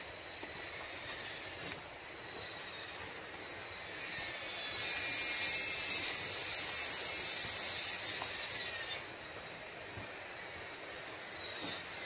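High-pitched buzzing chorus of forest insects, cicada-like. It swells about four seconds in, holds steady, and cuts off suddenly about nine seconds in, with a short return near the end.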